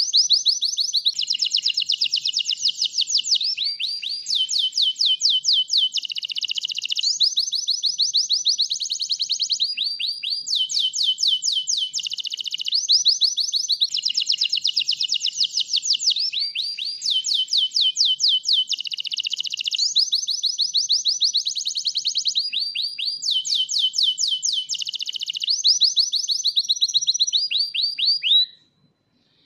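White domestic canary singing a long, unbroken song in full voice: rapid trills of high repeated notes, phrase after phrase changing every second or two. It breaks off briefly near the end.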